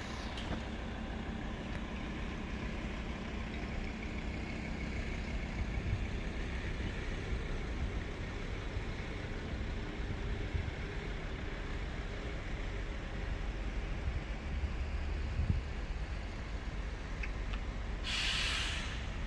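Black Mercedes-Benz hearse and funeral limousines driving slowly past, a low engine and tyre rumble. A loud hiss of about a second comes near the end.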